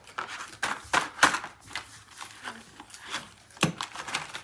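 Plastic packaging crinkling and rustling, with a series of sharp irregular clicks and crackles as toy parts are handled and unpacked.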